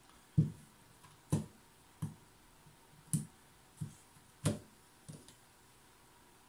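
Small portable radio-cassette player's built-in speaker playing a sparse run of short plucked notes, about one every three-quarters of a second. It sounds thin and ugly, with no bass.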